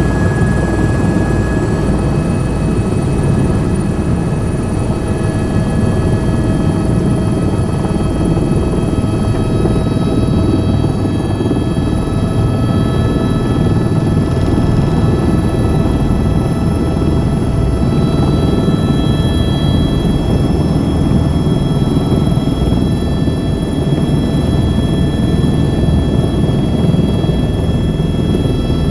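Helicopter engine and rotors running steadily and loudly, a dense low drone with thin, steady whining tones over it.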